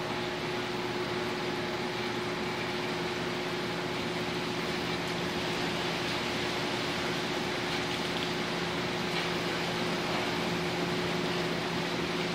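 Steady rush of strong hurricane wind, with a constant low hum underneath.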